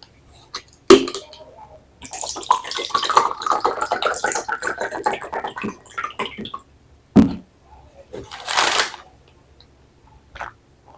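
Water poured into a glass, the pitch rising as it fills. A knock follows a little after seven seconds in, then a short hiss.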